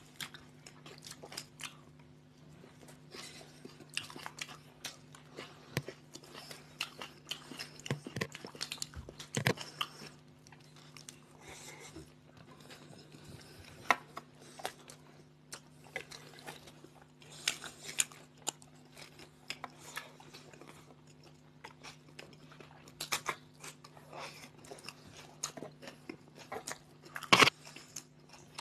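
Two people chewing and biting into toasted sandwiches close to the microphone: irregular soft crunches and mouth clicks, with a sharper crunch near the end. A steady low hum runs underneath.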